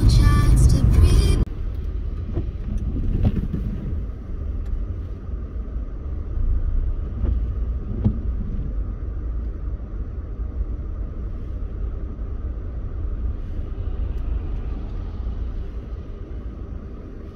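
Low, steady road rumble inside a moving car's cabin, with a few faint knocks. It opens with a louder passage that cuts off suddenly about a second and a half in.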